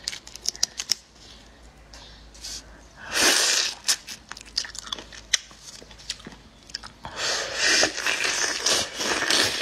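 Close-up eating sounds of raw marinated shrimp: wet clicks and chewing, with loud sucking slurps as the shrimp heads are sucked, once about three seconds in and again from about seven seconds on.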